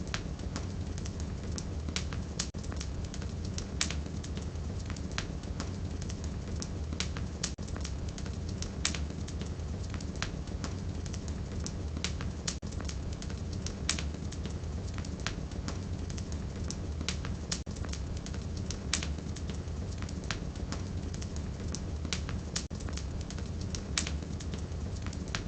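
Wood fire burning in a fireplace: burning firewood crackling, with many irregular sharp pops and snaps over a low, steady rumble.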